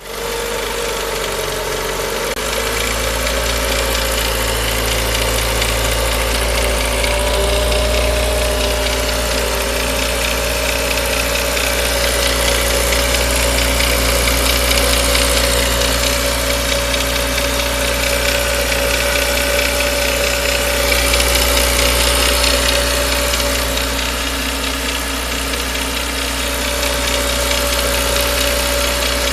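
Renault Mégane II 1.6 16V four-cylinder petrol engine running steadily, with a few mild swells as the engine speed rises. A metallic noise comes with acceleration from the left side of the engine near the oil dipstick and timing cover, which the owner likens to a loose nut.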